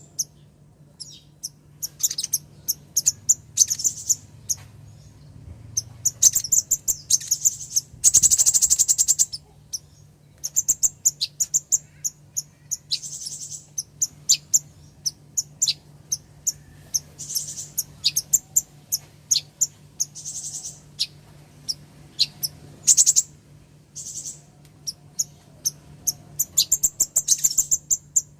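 Female kolibri ninja sunbird calling: high, thin chirps in rapid bursts, with a fast trill about eight seconds in. A faint steady low hum runs underneath.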